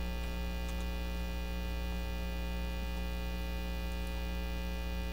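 Steady electrical mains hum with many overtones, unchanging throughout. A few faint clicks sound near the start and about four seconds in.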